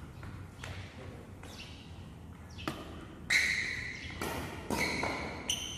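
Badminton doubles rally: rackets hitting the shuttlecock in a string of sharp hits, the loudest about three seconds in, with short squeaks from shoes on the court floor in between.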